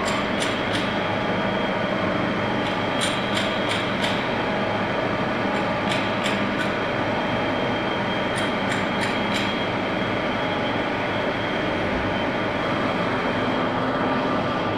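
Old CNC lathe running and cutting a part with an indexable carbide insert: a steady mechanical drone with a thin high whine, broken every two to three seconds by quick clusters of sharp ticks.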